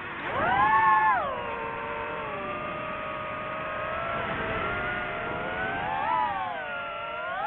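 DJI FPV drone's motors and propellers whining, the pitch rising and falling with the throttle: a sharp climb in the first second, a drop, a steady stretch, a brief rise around six seconds in, then a climb again at the end.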